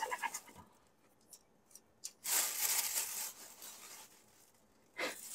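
Takeout packaging handled at the table: a few small clicks, then about a second of loud rustling, and a shorter rustle near the end.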